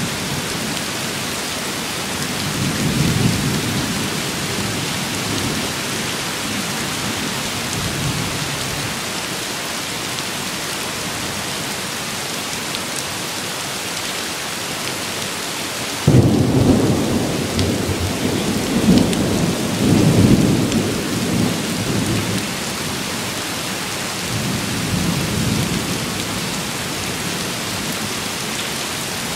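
Steady rain with rolling thunder: a low rumble a few seconds in, then a sudden loud thunderclap a little past the middle that rumbles on for several seconds, and a fainter rumble near the end.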